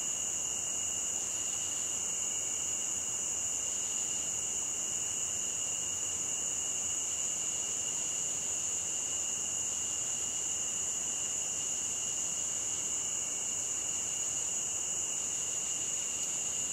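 Steady chorus of night insects, a constant high-pitched trill with no breaks.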